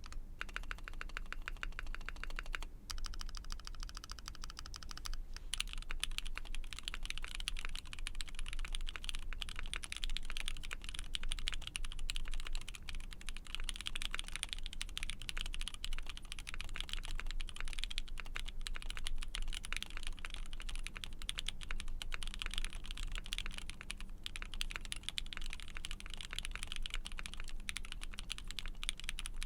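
Typing on an ATXKB Moontower V2 60% mechanical keyboard with lubed Black Cherry Pie switches in an aluminium plate, under CRP Tulip keycaps. The first few seconds are a fast, even run of keystrokes with a brief break; after that comes continuous typing.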